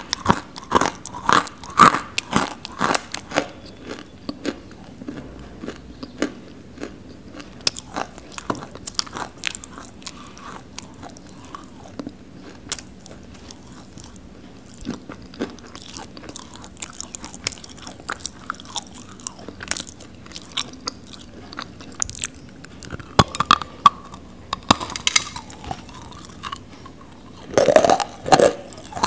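Close-miked biting and chewing of a chunk of dry, non-roasted Nakumatt clay: crisp crunches, thickest in the first few seconds and again near the end, sparser in between.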